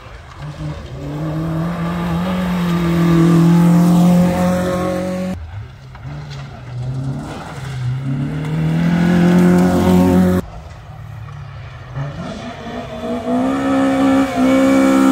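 Rally car engines on a gravel forest stage, each accelerating hard out of a bend with its note rising in pitch. There are three separate passes, each cut off suddenly, about five seconds apart.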